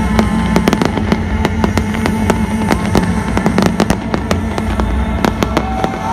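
Fireworks display: shells bursting overhead in many irregular, overlapping bangs and crackles, over a steady low rumble.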